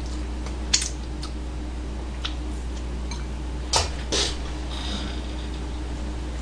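Handling noises of someone bending down to pick up food dropped on the floor: a few light clicks, then two brief rustling scuffs about four seconds in, over a steady low hum.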